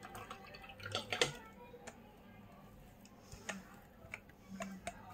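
Scattered light clicks and taps of a steel mixer-grinder jar and its plastic lid being handled, with a cluster of knocks about a second in.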